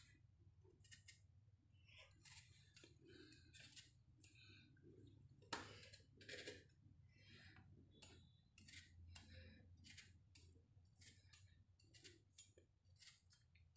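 Faint, irregular clicks and scrapes of a metal fork pricking holes in small peeled potatoes.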